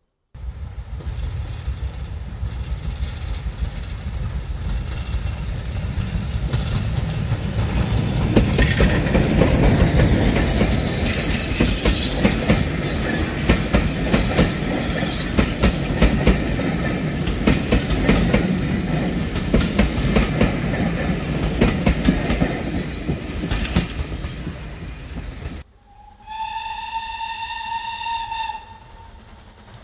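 A steam-hauled train of coaches passes close by, the wheels clattering over rail joints. Near the end, after a sudden cut, a steam locomotive whistle sounds one note of about two seconds.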